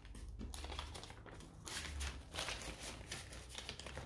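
Paper rustling and crinkling in short, irregular spells as euro banknotes and a paper envelope are handled.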